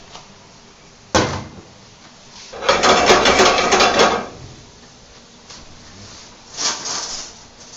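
Metal scraping and rasping against a cast iron skillet on the gas range as roux is worked into the sauce. There is a sharp knock about a second in, a loud scrape for about a second and a half a little later, and a shorter one near the end, over a steady background hiss.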